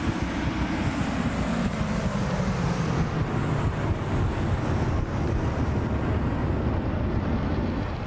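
A steady low rumble with hiss, its low drone sliding down in pitch over the first three seconds and then holding.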